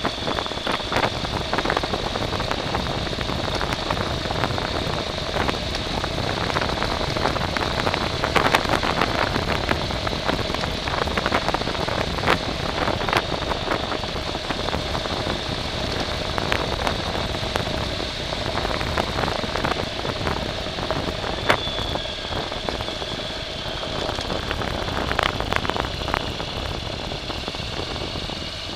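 A vehicle's motor running steadily, with a constant whine and many scattered clicks and crackles.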